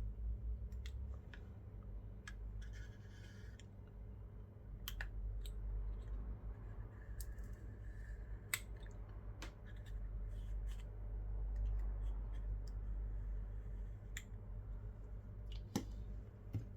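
Scattered small clicks, taps and light scraping of a repair tool working on a phone's internal parts, over a low steady hum.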